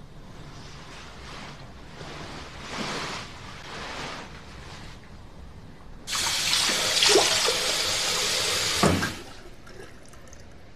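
Water running from a tap: a loud, steady rush that starts suddenly about six seconds in and cuts off about three seconds later, after a few softer swells of water noise.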